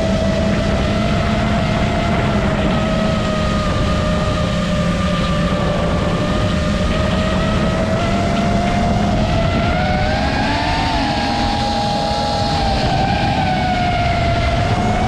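FPV quadcopter's brushless motors and propellers whining steadily, the pitch sliding down and then up again about two-thirds of the way through as the throttle changes, over a low rushing noise.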